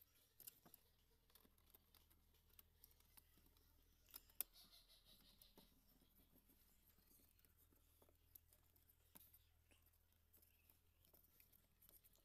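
Near silence: faint room tone with scattered small clicks and taps, the sharpest about four seconds in.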